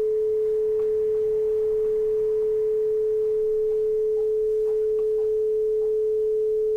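Television test-pattern tone: a single steady, mid-pitched pure tone that does not waver in pitch or loudness.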